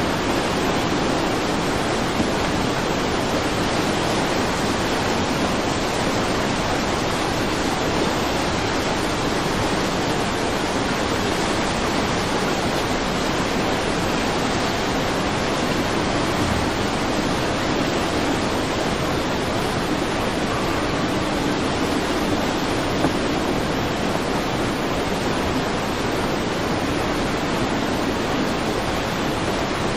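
Fast-flowing floodwater rushing and churning, a steady, even noise of turbulent water with no let-up.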